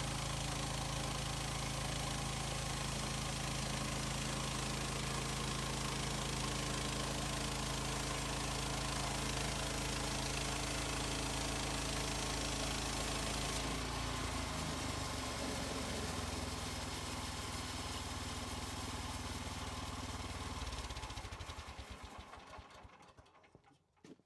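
Portable bandsaw sawmill's gasoline engine running steadily at speed. About 14 seconds in it is throttled down to a lower idle. Near the end it is shut off and winds down to a stop.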